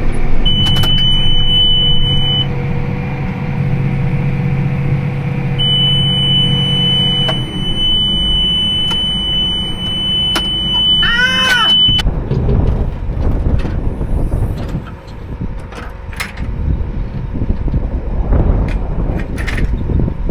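Tractor engine running under a long, steady high-pitched alarm beep from the round baler's monitor, sounding twice with a quick warbling chirp near the end of the second. After about twelve seconds the beep stops and a louder rattling rumble with scattered knocks takes over from the machinery.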